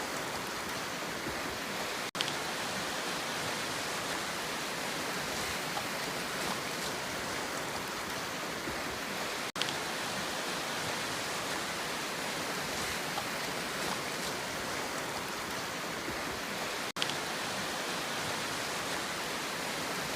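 Steady rushing noise of the sea, even and unbroken, with no wave rhythm, cut by brief gaps three times, about seven seconds apart.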